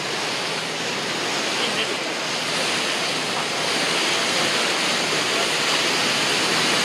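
Churning wake water of a passenger cruise boat, a steady rushing and splashing that grows a little louder about three seconds in.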